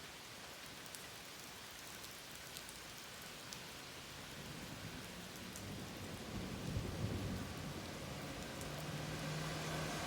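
Steady rain with scattered drop ticks. In the second half a low rumble builds up, with a steady low hum joining near the end.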